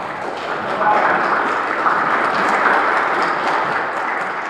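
Audience applauding: a dense patter of many hands clapping that swells about a second in and eases off near the end.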